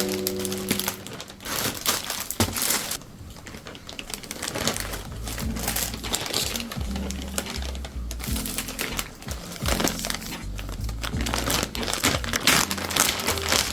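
Packaging crinkling and rustling as a package is unboxed by hand, with irregular crackles throughout, over background music with low steady bass notes.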